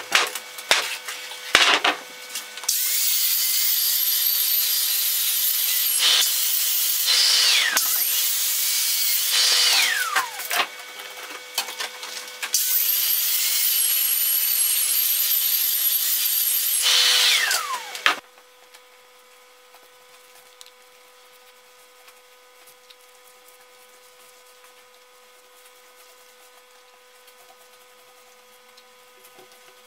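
A handheld electric power tool working the surface of an old oak beam. After a few knocks at the start, its motor runs with a loud high whine from about three seconds in, winds down and starts again a couple of times, and stops for good at about eighteen seconds. After that only a faint steady hum remains.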